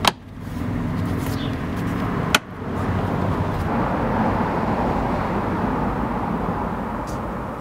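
Plastic retaining clips snapping into the underside of a BMW X5 E53's rear bumper: a sharp click at the start and another about two seconds later, over a steady low background rumble.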